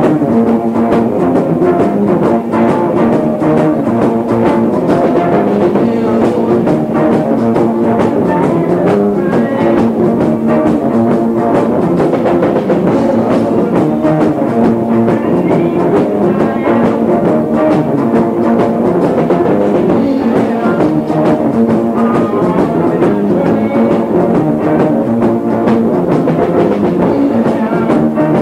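Live rock band playing: electric guitars and a drum kit, on a lo-fi recording made on a faulty cassette recorder placed down the hall from the stage. The vocals can barely be heard because of a weak PA.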